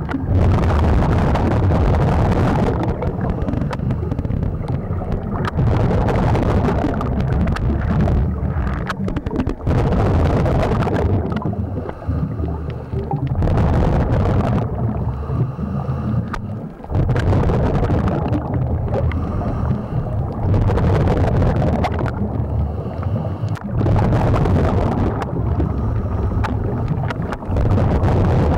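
A scuba diver's regulator breathing cycle heard through an underwater camera housing: a rumble of exhaled bubbles swells and fades every three or four seconds, with quieter gaps in between.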